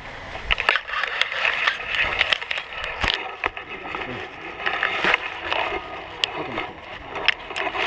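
Handling noise from a tandem paragliding landing: rustling, scraping and clicking of harness gear, glider lines and the camera mount against grass, with one sharp knock about three seconds in.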